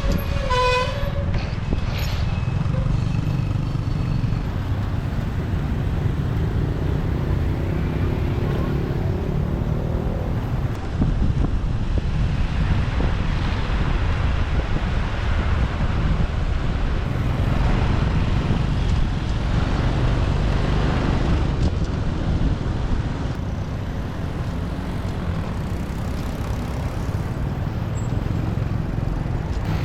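Motorbike riding through city traffic, heard from the bike: a steady low engine and road rumble with passing traffic swelling and fading. A brief pitched tone sounds right at the start.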